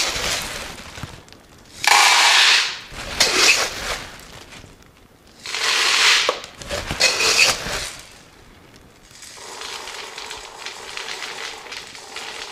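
Dried pea seeds poured from a small plastic container into a plastic pitcher, rattling in several short pours, with quieter scooping and shuffling between them.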